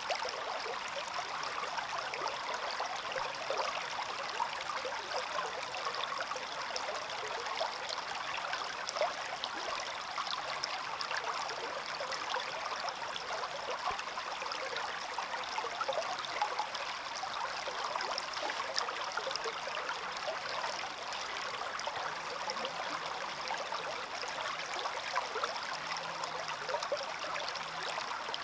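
Small stream running steadily, water babbling and trickling over stones.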